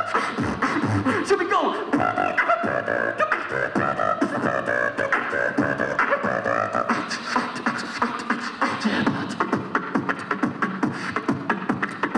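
Beatboxer performing live through a microphone and PA: mouth-made drum beats with hummed and gliding vocal tones, settling into a steadier, quicker run of clicks and snares about halfway through.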